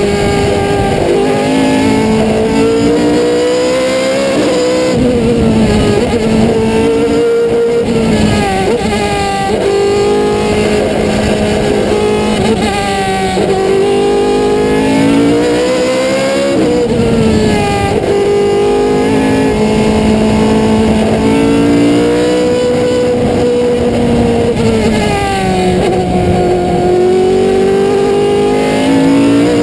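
Single-seater race car engine at high revs, heard from on board: the pitch climbs through each gear, breaks at quick gear changes and dips as the car slows for corners, over and over.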